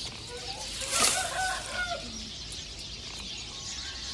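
Chicken clucking in short calls, with a loud, noisy burst about a second in, over faint small-bird chirping.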